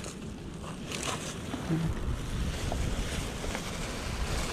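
Wind rumbling steadily on the microphone over the wash of sea surf.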